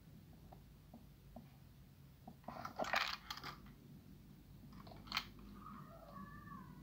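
Handling noise of a Glock 17-style pistol being lifted into aim: scattered small clicks and a cluster of rustling clicks about three seconds in, then one sharp click about five seconds in. Near the end a cat starts meowing, a wavering call.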